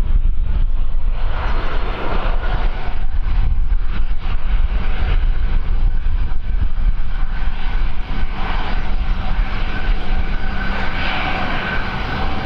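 Aircraft engines running with a steady whine that strengthens about a second in and again in the second half, under heavy wind buffeting on the microphone.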